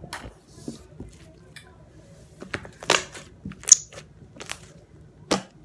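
Slime being pressed and folded by hand on a tabletop, giving a series of irregular sticky clicks and pops, the loudest ones coming from about two and a half seconds in.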